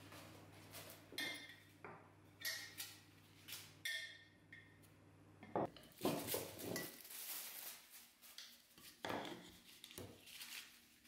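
Glass storage jars with bamboo lids and Pyrex glass food containers being handled and set down on a wooden table: scattered quiet clinks and knocks, some with a short glassy ring.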